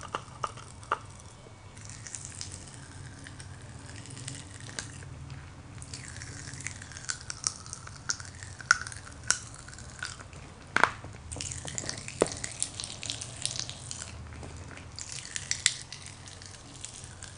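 Crack-Ups popping candy crackling in the mouth: irregular sharp pops over a faint fizzing crackle, coming in thicker clusters now and then.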